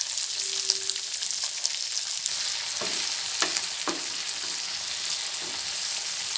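Chopped onions, capsicum, garlic and green chilies sizzling in hot oil in a pan, with tomato sauce and soya sauce just added. A few short stirring scrapes come about three to four seconds in.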